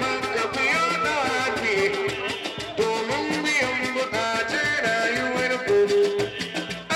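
Music with a singing voice over a busy percussion beat.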